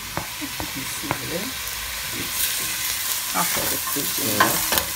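Chopped onions sizzling and frying in hot rapeseed oil in a pot, with the clicks and scrapes of a wooden spoon stirring them.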